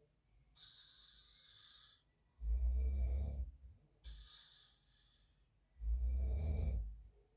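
A man snoring in his sleep: two loud, low snores about three and a half seconds apart, each lasting about a second, with a softer, airy breath between them.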